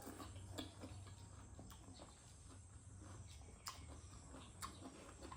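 Faint eating sounds close to the microphone: a few soft mouth clicks and smacks of chewing, spaced a second or so apart.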